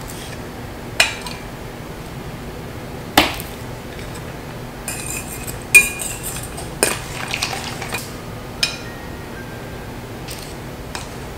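Metal utensils clinking against a stainless steel mixing bowl and knocking on a wooden cutting board while almonds are handled and sliced with a knife. There are about six separate strikes spaced a second or two apart, some with a short metallic ring, the loudest about six seconds in.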